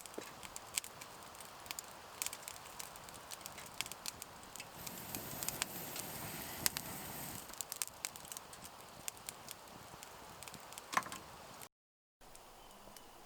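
Irregular small clicks and crackles, a few of them sharper, with a brief drop to dead silence near the end.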